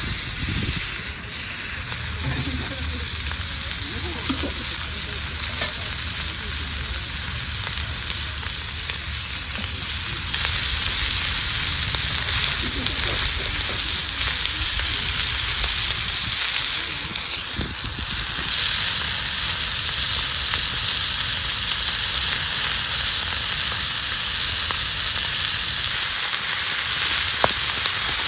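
Steak sizzling as it cooks over a campfire, a steady frying hiss that grows stronger about two-thirds of the way through.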